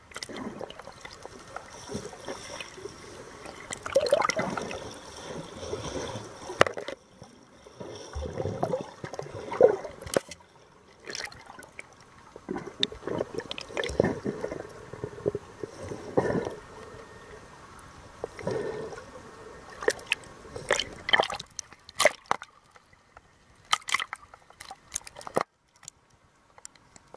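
Muffled water gurgling and sloshing, heard through an underwater camera housing, with scattered clicks and knocks.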